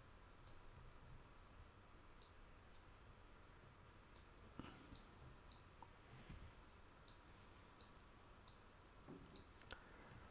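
Faint, irregular clicking of a computer mouse button, about a dozen short clicks over a low steady hiss.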